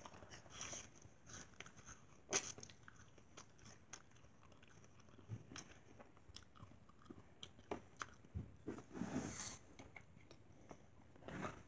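Raw apple slices being bitten into and chewed, faint crisp crunches scattered through, with the sharpest bite about two seconds in.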